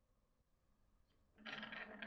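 Near silence, then about a second and a half in a glass marble starts rolling along a wooden track with a steady hum and light rapid clatter.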